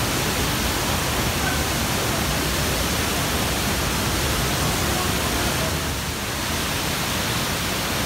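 Galgamaç Waterfall, a two-tiered fall of about 20 m plunging into its rock pool: a steady, noisy rush of falling water.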